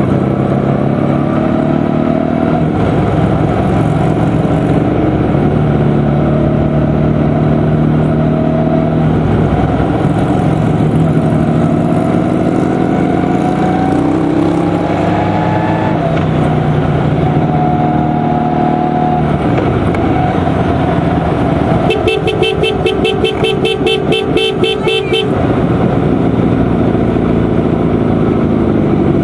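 Motorcycle engines on a group ride, the engine note rising and falling as the bikes shift gears and slow, over steady wind noise. About two-thirds of the way through, a horn beeps in a rapid string of short pulses for about three seconds.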